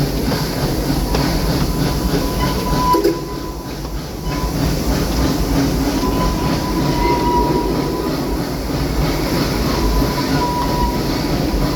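Amusement-park train rolling along its track, heard from aboard: a steady rumble and wheel clatter, with a thin wheel squeal that comes and goes several times.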